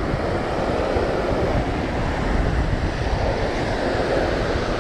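Shallow ocean surf washing over the sand, a steady rush of foamy water, with wind buffeting the microphone.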